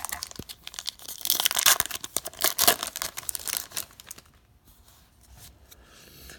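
A hockey card pack wrapper being torn open and crinkled, a dense run of crackling tears for about four seconds.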